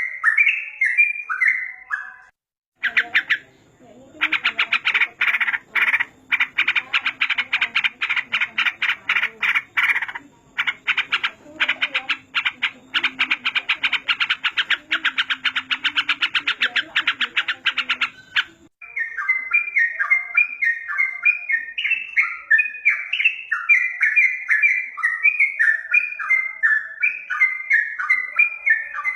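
Yellow-vented bulbul (trucukan) song: quick runs of short, falling, bubbling notes, repeated over and over. About 3 s in the song gives way to a long, very rapid buzzing chatter over a low hum. Near 19 s the chatter stops sharply and the bulbul phrases return.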